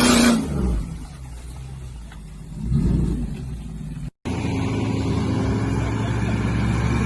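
Off-road vehicle engines: one engine revs up and falls back briefly about three seconds in, then after an abrupt cut a different engine runs steadily.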